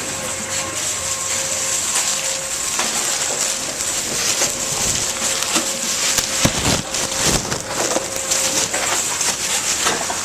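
Tomra T-63 reverse vending machine running: a steady hum and hiss with repeated clattering knocks as containers go through. The loudest, deepest knocks come about six and a half to seven and a half seconds in.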